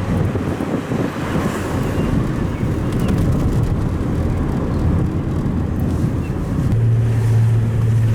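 Holden Commodore engine running with an uneven knock, the sign of a failing motor; the knock seems to come from the front of the engine. A steady low hum joins it near the end.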